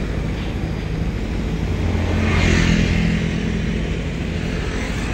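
Diesel engine of a Kobelco long-reach excavator running with a steady low hum, growing louder for about a second and a half around the middle.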